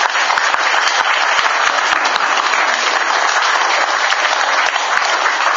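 A group of teenage pupils applauding: steady, dense clapping.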